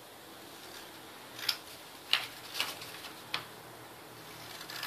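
Scissors snipping white cardstock: four short, sharp snips about half a second to a second apart, starting about a second and a half in, as small slits are cut into the folded edge.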